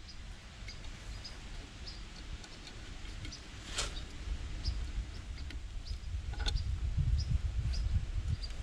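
Gloved hands handling the idle-speed cable at a diesel injection pump: rustling handling noise with two small clicks, one a little under four seconds in and one about six and a half seconds in, over a low rumble that swells near the end. Short high bird chirps come again and again in the background.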